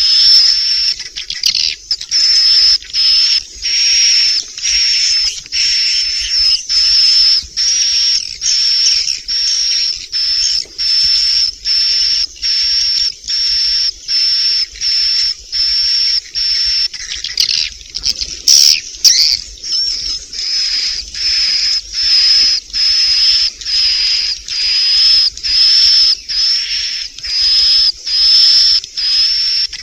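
Edible-nest swiftlets' roosting call (suara inap walet): dense, high chirping and twittering in a steady run of short pulses with brief gaps, a lure recording played in swiftlet houses to draw the birds in to roost. Near the middle, a brief sharper sound breaks the pattern.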